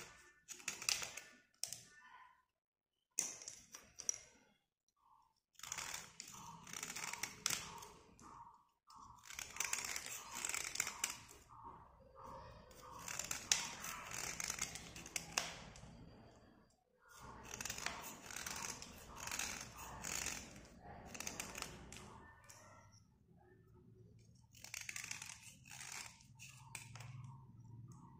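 A small metal blade scraping along a slate pencil, a dry rasping scrape made in quick strokes. The strokes come in runs of a few seconds with short pauses between them.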